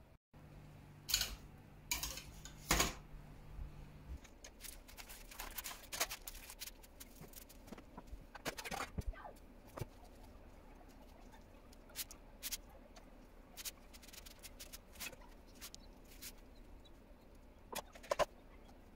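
Kitchen knife sawing through the top crust of a spinach sponge cake to level it: irregular soft scrapes and crumbly clicks against the wooden board. There are a few louder knocks in the first three seconds.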